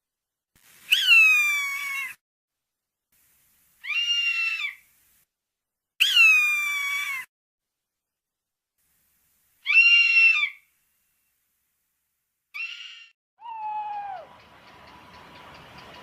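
A series of animal calls, cat-like mews that fall in pitch. Five calls of about a second each are spaced two to three seconds apart, several of them cutting off abruptly. A lower, shorter sliding call comes after them, followed by a steady low hiss near the end.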